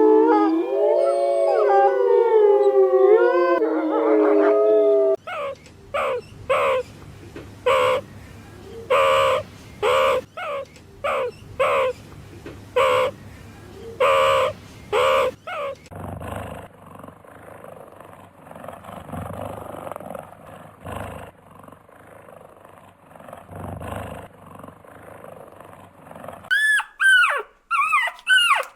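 Several canids howling together in overlapping gliding voices, followed by a run of short repeated calls about one a second. It then goes quieter before quick, high, falling yelps near the end.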